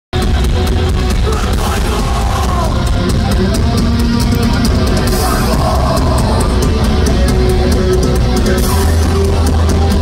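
A metalcore band playing live and loud through a festival PA, with heavily distorted guitars, bass, fast drums and cymbals, and vocals over the top, heard from within the crowd.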